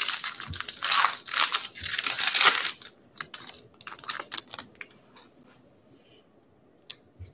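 A 2020 Bowman baseball card pack's wrapper being torn open and crinkled, loudest for the first three seconds, then fainter, sparser crackles as it is peeled back.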